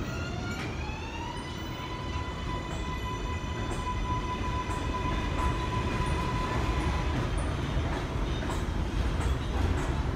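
R142A subway train running past on elevated track: its electric motors whine in several tones that rise in pitch over the first second and a half and then hold steady, over the rumble of wheels on rail, with light ticks about once a second.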